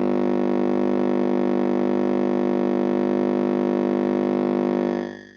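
A loud, sustained musical drone: one steady chord of many pitches held without change, fading out near the end.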